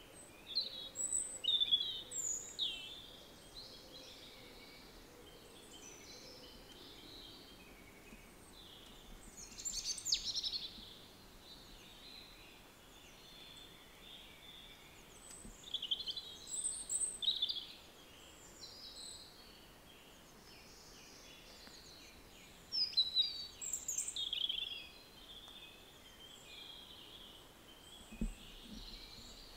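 Great tit nestlings calling in four bursts of high-pitched chirps over a steady low hiss. Near the end there is a short soft thump as a parent bird enters the nest box.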